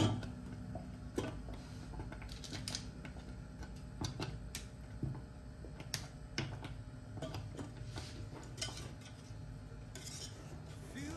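Wire whisk clinking and scraping against the sides and bottom of a stainless steel saucepan while stirring thick chocolate sauce, in irregular metallic taps.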